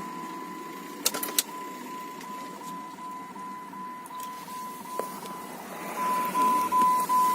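Jeep Grand Cherokee WJ warning chime beeping rapidly, about three short beeps a second on one steady tone, growing louder near the end. A few sharp clicks come about a second in.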